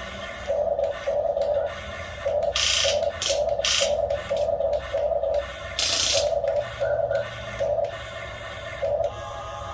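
Small electric gear motors of an RC excavator whirring in short on-off bursts as its controls are worked, with a few brief rattling scrapes among them.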